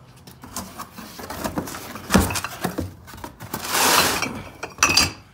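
Cardboard box being grabbed and shifted on a concrete floor, with knocks and clinks of loose junk moving inside it and a longer scraping rustle about four seconds in.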